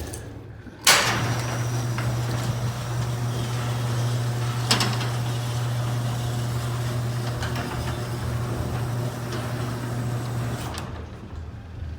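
Garage door opener starting with a sharp clunk about a second in, then its motor running with a steady hum while it drives the door, with a single click partway through, and stopping about a second before the end.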